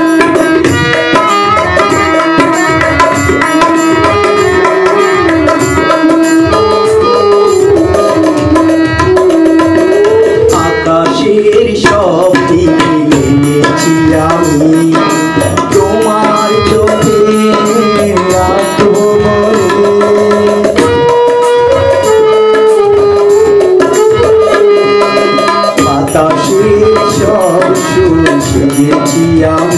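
Tabla playing a steady, busy rhythm with harmonium accompaniment under a wavering melody line, in a live Bengali song performance.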